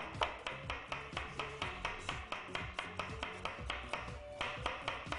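Chef's knife slicing radishes on a wooden cutting board in quick, even strokes, about five a second, over background music.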